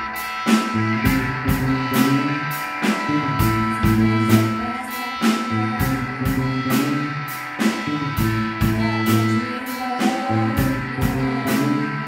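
A live rock band playing: electric guitars over a low bass line and a steady, quick beat, with a singing voice now and then.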